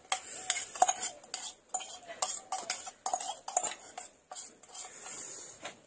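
A steel tumbler knocked and scraped against an iron wok as crushed herbs and spices are emptied from it, making a run of irregular metallic clinks and taps with a short ring.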